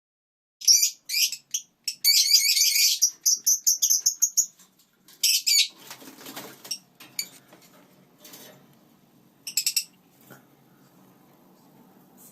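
Lineolated parakeets chirping and chattering in quick, high calls, with a dense burst of chatter about two seconds in and short call bursts again near five and nine seconds. A rustling noise comes in around six seconds.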